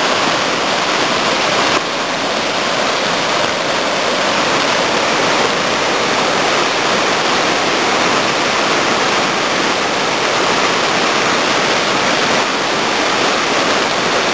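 Loud, steady rush of falling water, as of a waterfall or fast river, with a slight drop in level about two seconds in.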